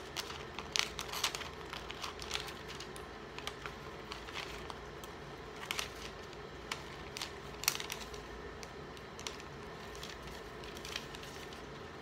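Small scissors snipping through thin vellum, a string of quiet, irregular snips with light crinkling of the sheet as it is turned.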